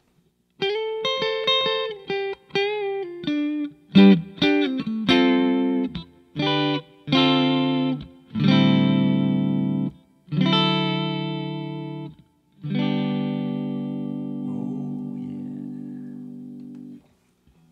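Epiphone Riviera P93 semi-hollowbody electric guitar being played: a quick run of single notes, then a series of strummed chords, the last left to ring and fade before it stops. The freshly reinstalled electronics are working.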